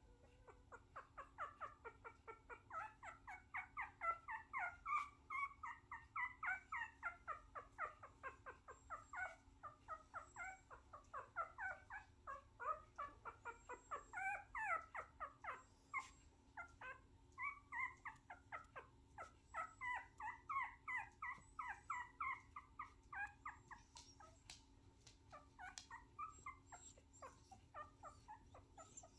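A young puppy whimpering and squeaking in short high cries, two or three a second, thinning out near the end.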